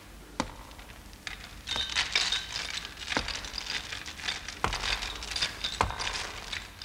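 A heavy chain rattling and clinking as it is dragged up stairs, with a few separate sharp knocks among the clatter.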